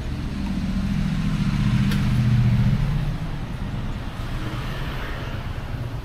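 A motor vehicle passing close by in street traffic: its engine hum swells to a peak about two and a half seconds in, then fades away.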